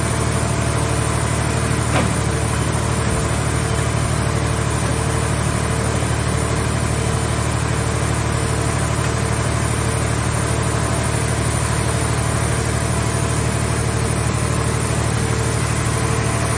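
Hydraulic car-shell baler's power unit running steadily, a continuous low mechanical drone, with one sharp click about two seconds in.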